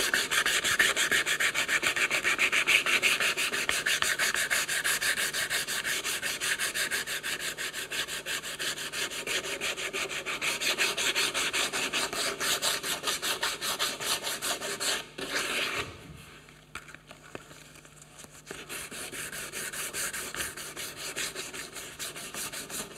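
Coarse sandpaper wrapped around a bottle, rubbed in quick back-and-forth strokes along the edge of a solid wooden cutting board to round the edge over. The strokes stop briefly about two-thirds of the way through, then carry on more softly.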